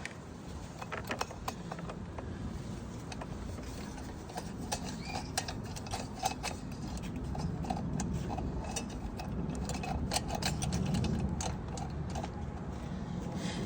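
Light clicks and taps of small metal parts being handled, as the throttle linkage is fitted to a push mower engine, over a steady low rumble.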